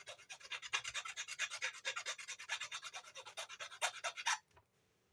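Hand file rasping back and forth in quick, even strokes on a crossbow bolt, taking off a burr to smooth the edge; the filing stops abruptly shortly before the end.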